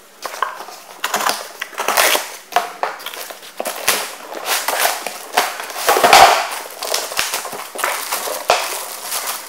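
Irregular bursts of rustling, scraping and crinkling as foam packing blocks are pulled out of a cardboard box and a plastic-wrapped inverter is lifted free, with sharp clicks and knocks throughout.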